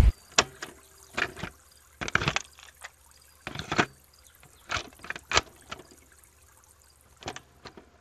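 Loud bass-heavy music cuts off at the start, followed by about a dozen short, irregularly spaced drip-like liquid sounds and clicks with quiet gaps between them.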